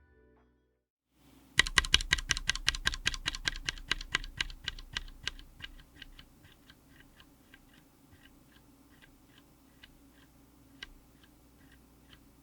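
Mechanical keyboard fitted with Akko CS Crystal linear switches (all-polycarbonate housings) on an FR4 plate, being typed on. A fast, loud flurry of keystrokes starts about a second and a half in, then thins after about four seconds to slower, softer single presses.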